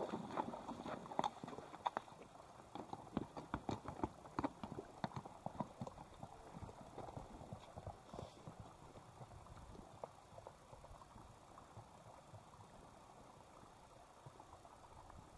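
Horse hooves clip-clopping on loose river rock: a run of irregular hoof strikes that thins out and fades after about six seconds.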